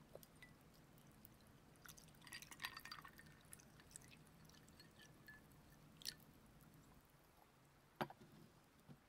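Faint close-up handling sounds: a cluster of small clicks and crinkles about two to three seconds in, then single sharp clicks about six and eight seconds in, over a faint low hum that stops about seven seconds in.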